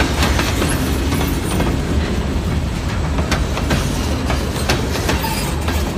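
Freight cars of a passing train rolling by at close range: a steady heavy rumble with irregular sharp clacks as the wheels pass over rail joints.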